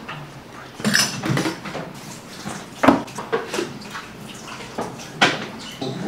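Sharp clicks and knocks of an espresso machine and its plastic and metal parts being handled and set in place on a counter, a few separate knocks, the loudest about three seconds in and another near five seconds.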